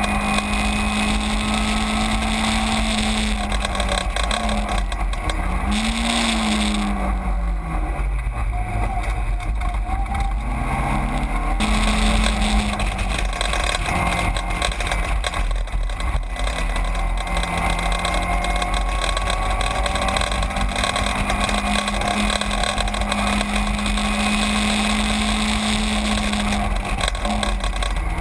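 Caterham 7 race car engine heard from the cockpit at racing revs. Its pitch slides down over a few seconds about a quarter of the way in, then climbs back and holds steady, with a short dip near the end, over a constant low rumble.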